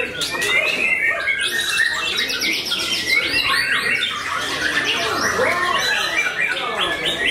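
White-rumped shama singing a long, dense, varied song of whistles, chattering phrases and trills, with a quick run of repeated notes about two to three seconds in.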